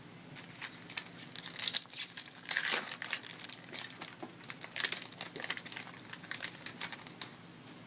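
Foil trading-card pack wrapper being torn open and crinkled by hand: a run of sharp crackles and rustles, loudest for a second or so about two seconds in and again around five seconds.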